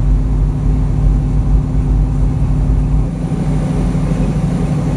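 Semi-truck's diesel engine and road noise droning steadily inside the cab at highway speed. About three seconds in, the engine note shifts and drops slightly.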